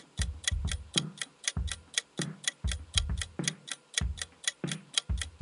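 Quiz countdown-timer sound effect: quick, even clock-like ticks, about five a second, over a low thud about twice a second.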